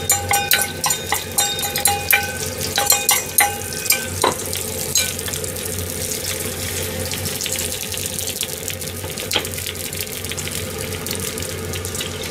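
Chopsticks clinking repeatedly against a stainless steel bowl as beaten egg is scraped into a hot tamagoyaki pan. From about four seconds in, the egg sizzles steadily as it fries in oil.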